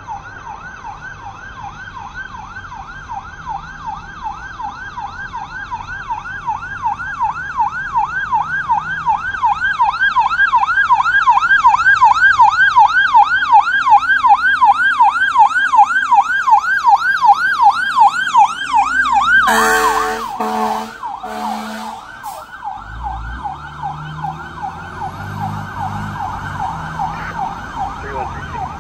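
Fire engine siren on a fast, rapidly repeating rise-and-fall yelp, growing louder as the truck approaches. About two-thirds of the way through, three loud short horn blasts break in. The siren then carries on more quietly under the low rumble of the truck's engine as it goes by.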